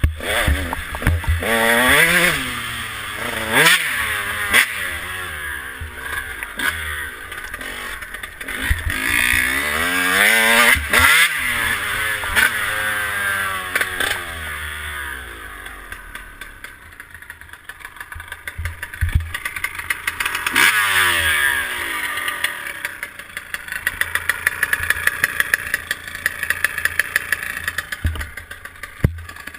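2012 KTM 150SX single-cylinder two-stroke motocross engine revving up and falling back over and over as the bike is ridden, its pitch sweeping up and down. It eases off for a few seconds past the middle, rises sharply again, then runs steadier near the end.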